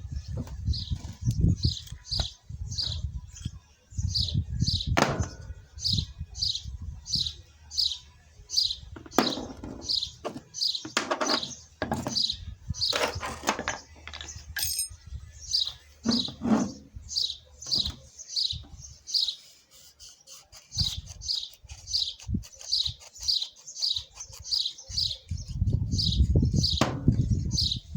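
A small bird chirping over and over, a short high falling note about twice a second, with irregular knocks and clatter underneath.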